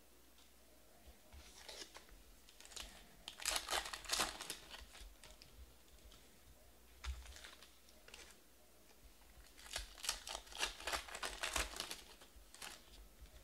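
Trading cards being handled on a table, cards slid and tapped against each other in short crisp clicks and rustles. About ten seconds in, a card pack wrapper crinkles as it is torn open, in a rapid run of rustling clicks.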